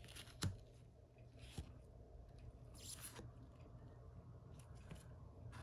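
Near silence with faint handling sounds of trading cards being slid and swapped in gloved hands: a soft click about half a second in and a brief rustle around three seconds.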